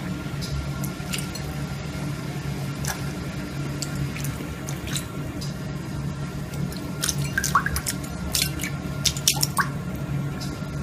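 Water splashing and dripping as a sphynx cat paws at a bowl of water: small scattered splashes and drips that come more often near the end, over a steady low hum.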